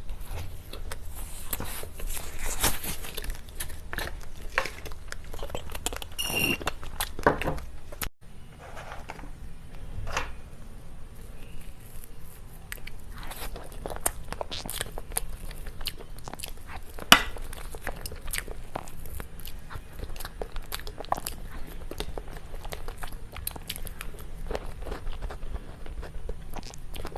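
Close-miked mukbang eating of cake: bites, chewing and crunchy mouth sounds with many small clicks. One sharp click about 17 seconds in is the loudest.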